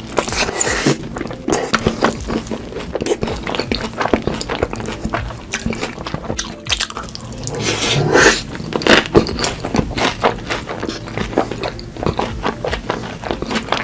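Close-miked mukbang eating sounds: wet chewing, lip-smacking and squelching of food heavy with sauce, a rapid stream of clicks and smacks, with a louder wet stretch about eight seconds in.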